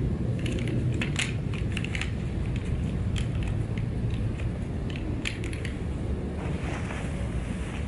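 The metal frame poles of a Marchway folding camping chair clinking and clicking against each other as the frame is folded and bundled together by hand. The clicks come in clusters over a steady low rumble.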